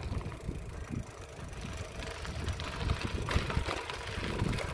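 Uneven low rumble and crackle of a gravel bike riding over a stony dirt track, its tyres on loose stones, with wind on the microphone.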